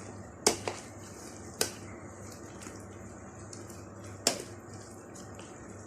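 A spoon stirring thick hot pepper puree, knocking against the side of the bowl in a few sharp, irregularly spaced clicks.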